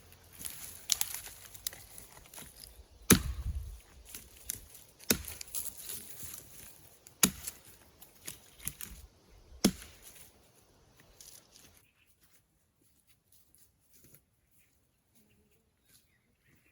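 Wood being chopped: four sharp blows about two seconds apart, with rustling and small knocks between them, stopping about twelve seconds in.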